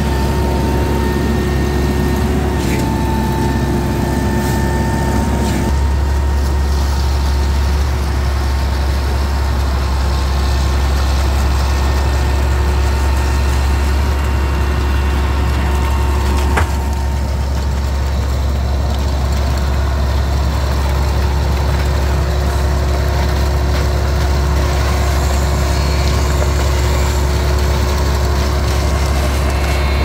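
Heavy diesel engines of concrete mixer trucks running steadily, a loud deep rumble with a faint steady whine over it; the low rumble shifts slightly about six seconds in.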